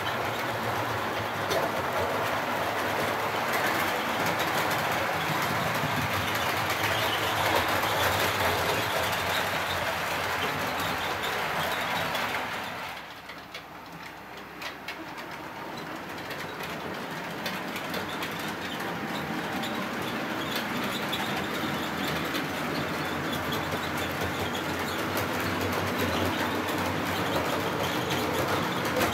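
Model trains running on the layout's track: a steady rattle and rumble of wheels and motors on the rails. It falls away about twelve seconds in as a train runs out of earshot, then builds up again as another train comes near.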